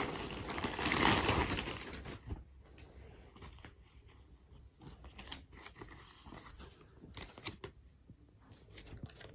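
A mailing package being ripped open and its contents rustled, loudest for the first two seconds, then quieter scattered rustles and clicks of handling.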